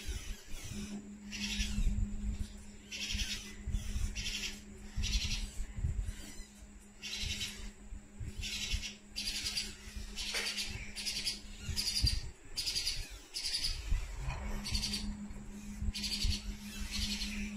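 Day-old Alexandrine parakeet chick giving short, high-pitched, rapidly pulsed cheeps about once a second: begging calls as it is held for spoon feeding.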